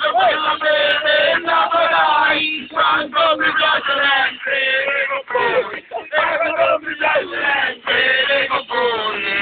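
Men singing Ciociaria stornelli together, unaccompanied voices in a wavering folk chant with brief breaks between lines.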